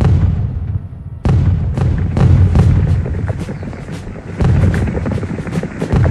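Battle sound effects of cannon and musket fire: deep cannon booms about a second in and again past the four-second mark, with scattered musket shots cracking between them that come thicker near the end.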